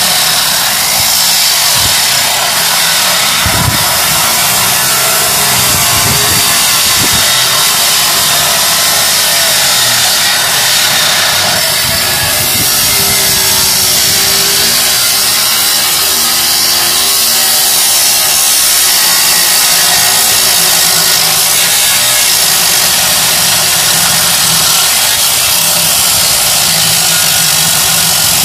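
Handheld electric power tool cutting through the metal body of a Land Rover Discovery as the roof is cut off: a loud, steady, high-pitched hiss that runs without a break.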